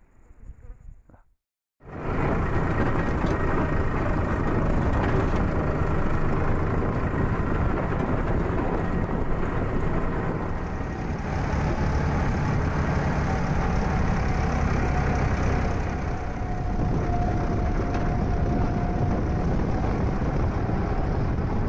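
Farm tractor engine running steadily as the tractor drives along a dirt track, heard from the open driver's seat, with a thin whine over the engine noise. It starts abruptly about two seconds in.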